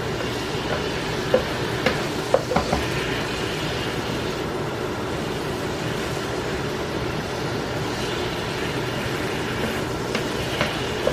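Onions and mushrooms sizzling steadily in butter in a frying pan. A few sharp clicks of a utensil against the pan as they are stirred, several in the first few seconds and one near the end.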